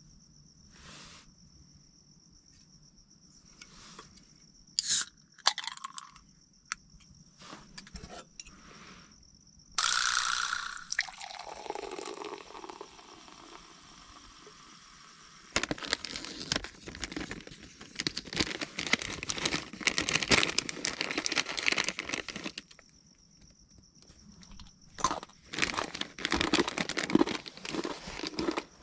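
Liquid being poured into a container about ten seconds in, with a pitch that slides down over a couple of seconds. Several seconds of dense crackling follow, with a few scattered clicks and knocks around it.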